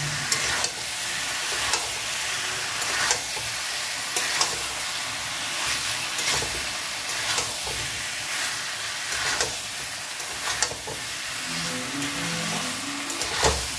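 Spiced chunks of pumpkin, potato and pointed gourd sizzling in oil in a steel wok while a spatula stirs and scrapes through them, with a scrape about once a second over a steady sizzle. This is the sauté stage, frying the vegetables down with their spices before water goes in.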